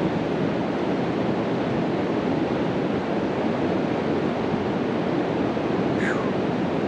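Steady rush of flowing river water, with a brief falling chirp near the end.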